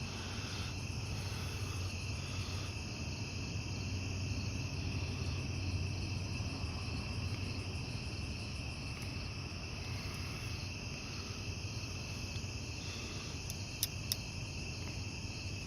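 Crickets chirping steadily in the background at night, over a low hum, with two faint clicks near the end.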